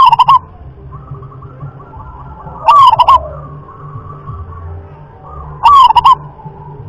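Zebra dove (perkutut) singing: three short phrases of quick, rolling coo notes, each about half a second long and about three seconds apart. Fainter bird calls sound between the phrases.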